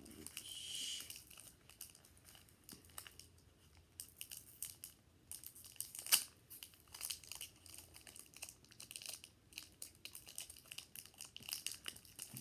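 Crinkling and crackling of a Pokémon booster pack's foil wrapper as it is worked and torn open by hand, many small sharp crackles with one louder crack about six seconds in.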